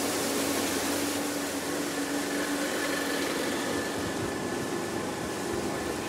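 Motorboat engine running at a steady pitch, under a constant rush of noise as the boat moves along the river.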